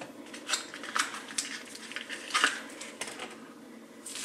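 A small cardboard box and a paper sachet being handled: scattered soft clicks and light rustles, one a little louder about halfway through.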